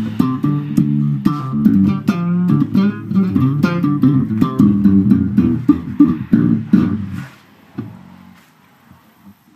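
Warwick electric bass played in a busy funky line of short notes with sharp, percussive attacks. The playing stops about seven seconds in and the last note fades out.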